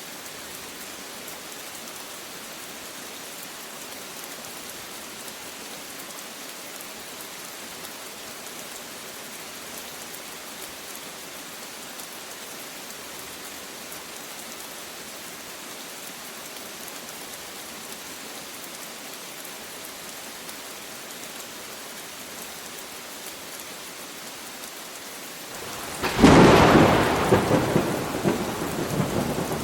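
Steady rain falling, then a sudden loud thunderclap about 26 seconds in that rumbles on and fades through the last few seconds.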